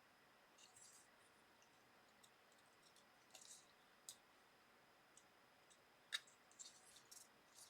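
Faint, scattered small clicks and light scrapes of small phone parts and tools being handled during disassembly. There is one sharper click about six seconds in.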